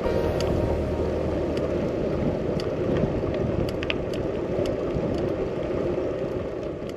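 Steady low rumble of travel noise, like road and wind noise from something moving, with a few faint clicks over it.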